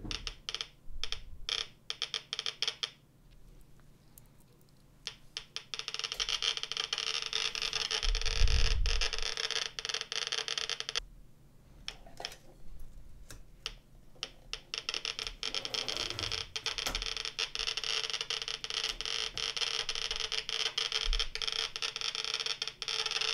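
Geiger counter loudspeaker clicking once for each count from an SI-8B pancake tube. It gives a few scattered clicks at first, then a rapid, dense crackle as the probe sits over thorium welding electrodes, a sign of their radioactivity. The clicks break off briefly around the middle, and there is a dull handling thump about eight seconds in.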